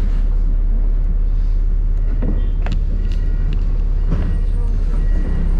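London double-decker bus running, heard from on board: a steady low engine and road rumble with a few clicks and rattles past the middle.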